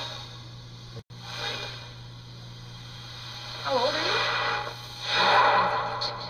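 Breathy hiss swelling in several waves over a steady low hum, with a short voice-like sound gliding down near the middle and a brief cut-out about a second in.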